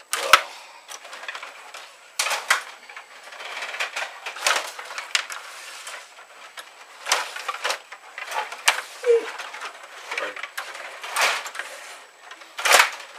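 Stiga table hockey game in play: plastic players clacking and rattling as their rods are spun and slid, and the puck knocking against sticks and boards. Irregular clicks and clacks, with a sharper knock every second or two.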